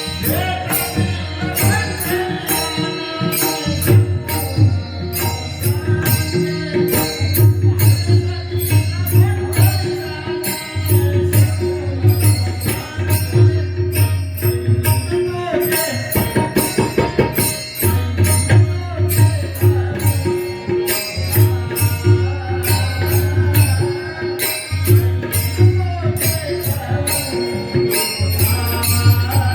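Marathi devotional kirtan music: a hand drum keeps a steady beat under fast, even cymbal strokes, with a held drone and a bending sung or played melody.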